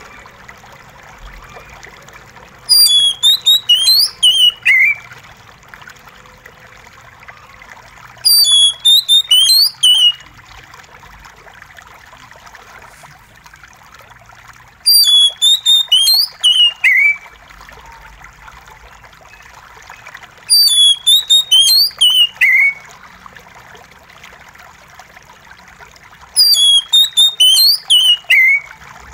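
Oriental magpie-robin singing five short phrases of rapid, high, sliding whistles, each ending in a falling slur, about every six seconds. A steady trickle of running water hisses underneath.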